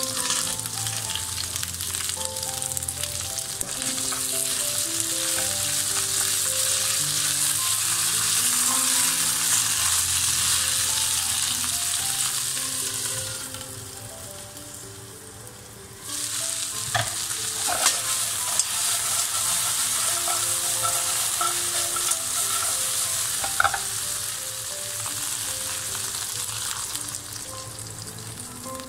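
Raw crab pieces sizzling in hot oil and garlic in a wok, a loud steady hiss. It dips for a few seconds about halfway and comes back, with a few sharp knocks of shell or utensil against the pan.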